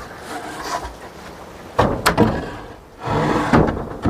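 Wooden lumber boards knocking and scraping against each other as they are lifted off a stack and moved: two sharp knocks about two seconds in, then a longer clatter near the end.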